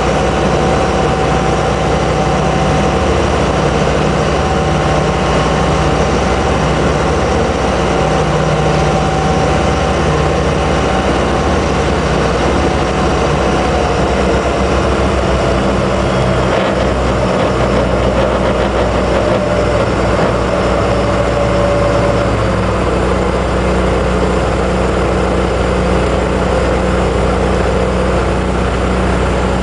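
Dive boat's engine running steadily underway, with wind and rushing water around the hull; the engine's pitch steps down slightly a few times in the second half.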